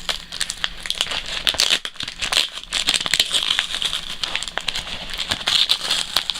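A parcel's packaging and tape crinkling and crackling as they are pulled and picked open by hand, a dense run of irregular clicks and crackles.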